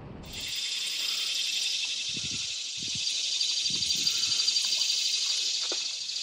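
Chorus of insects buzzing, a dense steady high-pitched drone with a fine rapid pulse. A few soft low thumps come around the middle.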